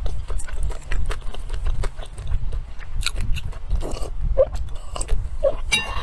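A person chewing and crunching food close to the microphone: a quick, irregular run of crisp crunches and wet mouth clicks over a low rumble.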